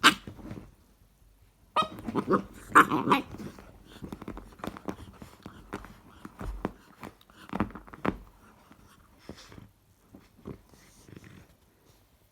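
Cane corso puppy growling in play, loudest in a burst about two seconds in, followed by scattered clicks and knocks that grow sparser toward the end.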